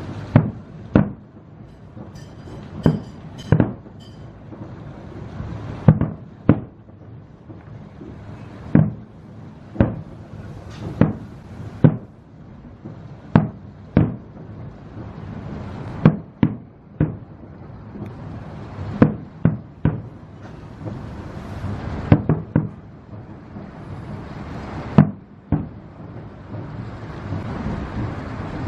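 Aerial fireworks shells bursting one after another, sharp booms every second or two with a short echo after each, over a steady low rumble.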